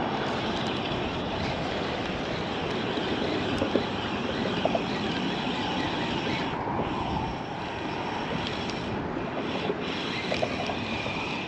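Steady wind rushing over the microphone, with a few faint ticks.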